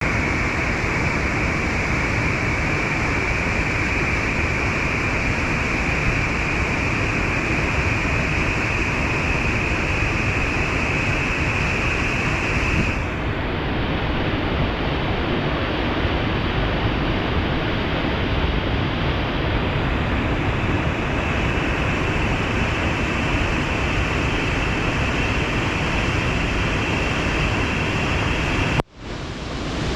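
Steady roar of falling water from a waterfall, an even rushing hiss. Its tone shifts about halfway through, and it briefly drops out near the end.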